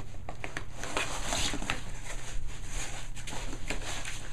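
A dog tearing at a cardboard box with its mouth and paw: a run of scratchy rustling and short crackles as the cardboard rips.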